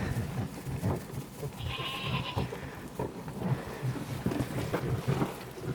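A short livestock bleat about two seconds in, over irregular crunching and rustling.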